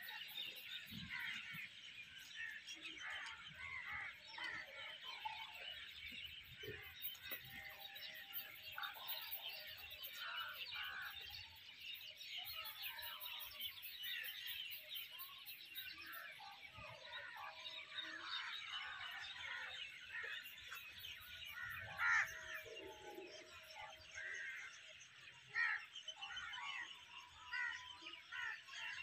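Many birds chirping and calling at once in a dense, continuous chorus, with a few longer, lower calls and one louder call about two-thirds of the way through.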